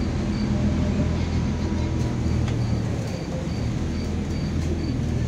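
MAZ-203 city bus running and driving, heard from inside the passenger cabin as a steady low engine hum over road noise. A short high beep repeats about twice a second, pausing briefly partway through.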